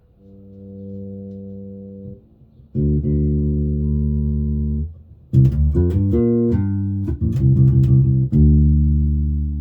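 Hammer five-string mini bass through a Warwick BC10 bass amp: a soft note swells in, then a louder low note is held. About five seconds in comes a quick run of plucked notes, and near the end another low note is left ringing.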